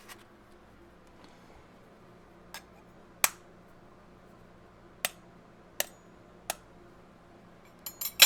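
Sharp, separate clicks and clinks of an egg and dishware being handled on a table, about one every second or so, then a quick cluster of them near the end, the loudest.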